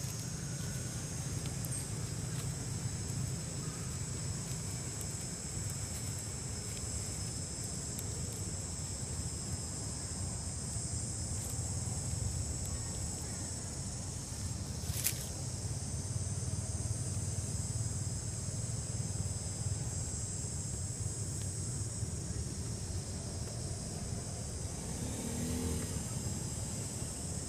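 Steady high-pitched chorus of insects trilling over a low steady rumble, with one sharp click about halfway through.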